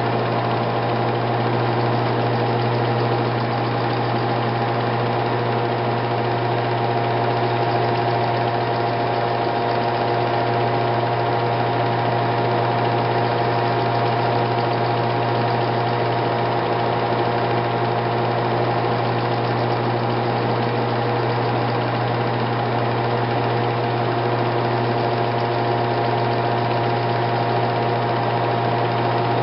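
Film projector running, a steady mechanical whir with a constant low hum and a few fixed higher tones.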